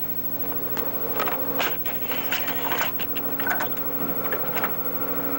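Irregular mechanical clicking and rattling over a steady low hum.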